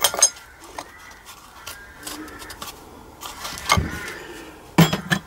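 Scattered light clicks and knocks of metal engine parts being handled on a workbench, with a cluster of knocks near the end.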